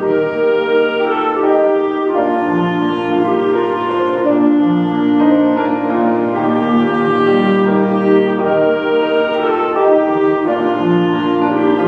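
Orchestra playing slow, sustained chords, the held notes shifting every second or two.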